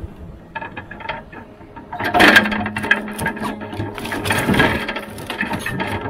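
Rottne F13-C forwarder crane handling a grapple-load of logs: wooden logs knocking and clattering against each other and the grapple, loudest from about two seconds in. A steady hum from the crane's hydraulics runs under the clatter for a couple of seconds.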